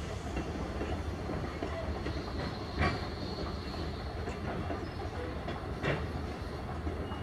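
Heritage railroad passenger coaches rolling past, a steady low rumble with two sharp clacks of the wheels about three seconds apart.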